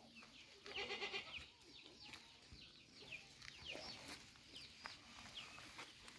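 A goat bleats once, a short wavering call about a second in, while small birds chirp repeatedly in short falling notes throughout.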